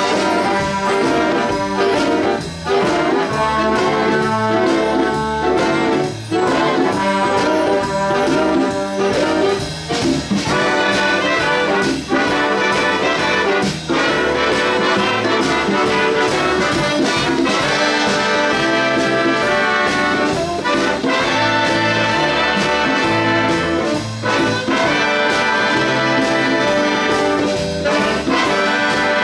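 Big band playing: a brass section of trumpets and trombones over a steady drum beat.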